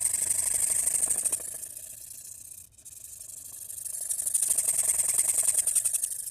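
Carbon-steel knife edge being ground on a Shapton Glass 500 whetstone: rapid back-and-forth rasping strokes, with a short break about two and a half seconds in. The blade is held at a steep 45-60 degree angle to grind out chips in the edge, the stone's slurry left to build up.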